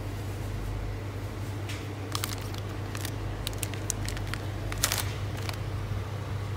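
Plastic candy packets crinkling as a hand handles them on a shop shelf: a few short sharp rustles, the loudest about five seconds in, over a steady low hum.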